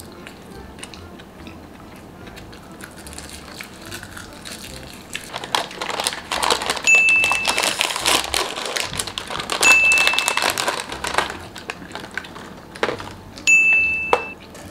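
A plastic wrapper crinkling and rustling for several seconds as a small snack packet is torn open and unwrapped. Three short, high, steady beeps sound during and after it, a few seconds apart.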